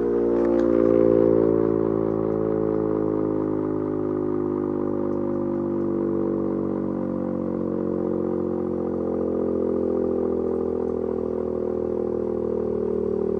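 Three-phase electric air raid siren, its rotor and stator turning slowly, sounding a steady low wail whose pitch sags slightly over the first few seconds and then holds. It is held well below full speed because the underpowered 220-volt VFD cannot drive its 380-volt motor any faster.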